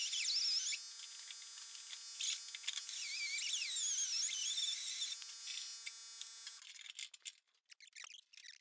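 High-speed grinder whining as it takes a little metal off the steering shaft parts so they fit, its pitch wavering under load. It cuts out about two-thirds of the way through, followed by a few light metallic clicks.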